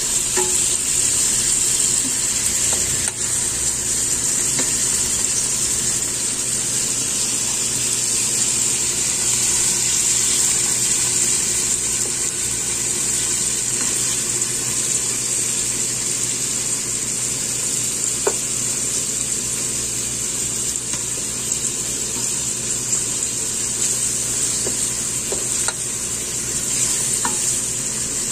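Chicken pieces sizzling steadily in hot oil in a nonstick pan as they brown, with ginger, garlic and onion. A spatula stirs them now and then, giving a few light ticks.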